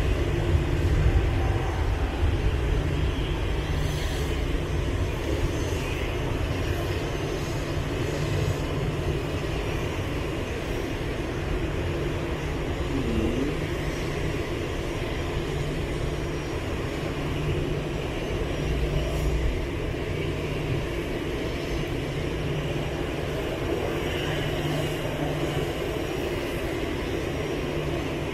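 Jet engines of a narrow-body airliner taxiing at idle thrust: a steady, continuous roar with a strong low rumble.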